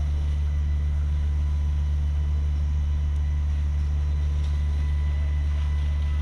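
A fire engine's engine running steadily while it pumps water to the hose lines: a constant low drone with a faint steady high whine above it.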